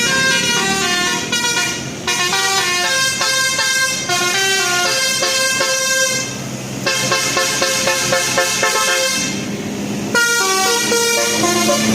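Basuri-type telolet bus horn playing a melody of short stepped notes, with brief breaks between phrases.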